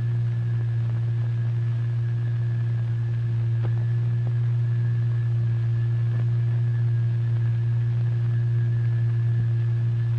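Steady low hum-like tone held at one pitch, with faint higher overtones and a light hiss behind it: the oscillator tone driving the vibrating fluid in a cymatics experiment.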